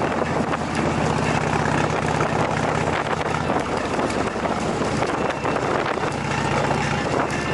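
Motorcycle engine running at road speed under steady wind noise on the microphone. The engine note eases off about three and a half seconds in and picks up again near the end.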